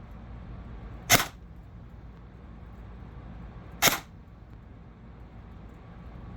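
Single shots from a CYMA M4 airsoft electric gun (AEG), each a short sharp crack. They come about every two and a half to three seconds: one about a second in, one near four seconds, and a third right at the end.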